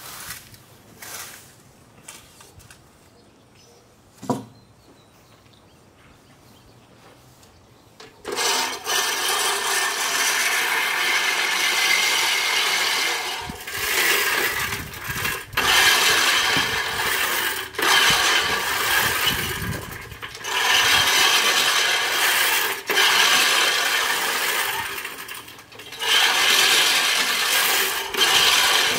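Reel lawn mower's spinning blades whirring and clattering as they cut tall grass. It starts about eight seconds in and runs in surges a couple of seconds long with short breaks between them. Before that there are only a few faint clicks, one of them sharp.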